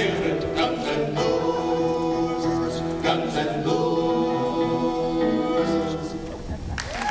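A men's a cappella quartet singing in close harmony, ending the jingle on a long held chord.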